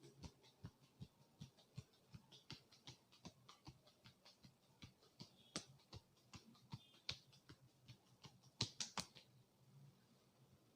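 Hands tapping and patting on a head during a massage: quick, faint taps a few times a second, with a louder burst of three or four close together near the end before the tapping stops.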